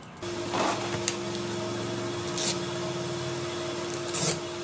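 Fabric and zipper rasping as the travel cover of a folded rooftop tent is unzipped and pulled at, in several short scratchy strokes. A steady low hum comes in a moment in and runs underneath.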